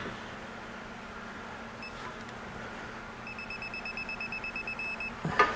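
Proto electronic torque wrench beeping as the nut is pulled up to its 200 foot-pound setting. A single beep about two seconds in, then a quick run of rapid beeps, about seven a second, for nearly two seconds as the preset torque is reached.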